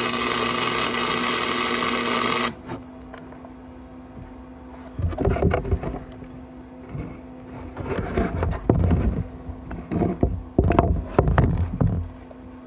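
A welding arc crackling steadily, cutting off about two and a half seconds in. From about five seconds in comes a run of irregular scraping and knocking of metal being handled or worked, over a steady low hum.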